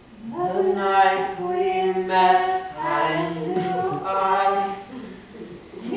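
Unaccompanied singing: held, sung notes start about a third of a second in, with no instruments behind them.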